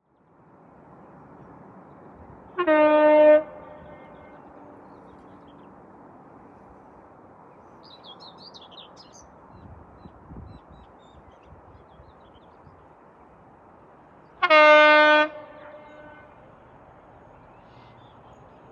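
Train horn sounding two short blasts about twelve seconds apart, over a steady rumble of rail traffic. A bird chirps briefly between the blasts.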